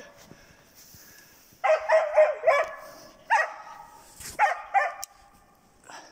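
Hunting dog barking at a marten treed overhead: a quick run of about four barks starting about one and a half seconds in, then a few more single barks spaced out.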